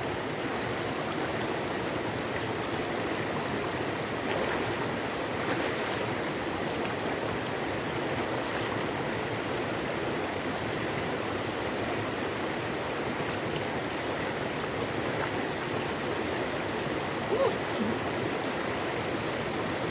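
River water rushing steadily over rocks, a continuous even wash of running water.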